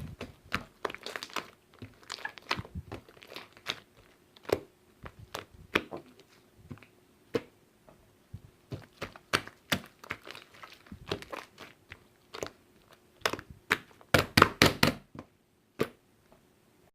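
Irregular sharp clicks and crinkling taps, like something being handled, with a quick, louder cluster of them near the end.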